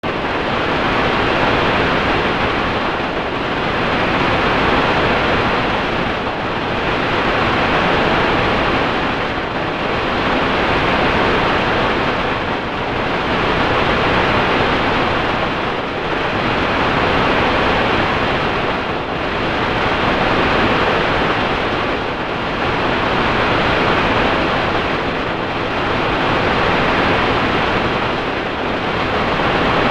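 Steady, dull rushing noise from a 4ormulator V451 audio-edit effect, swelling and fading in regular waves about every three seconds, with no sharp hiss on top.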